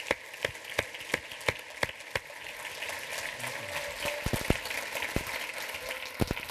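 Audience applause in a hall. It starts with one person's loud, close claps at about three a second, then a fuller round of clapping from many people builds about two seconds in and carries on, with a few low thumps in the middle.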